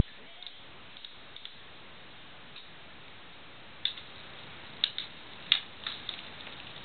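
Cat kicking and clawing at a plush kicker toy: scattered small clicks and scuffs as claws catch the fabric. They are sparse and faint at first, with a few sharper clicks from about four seconds in.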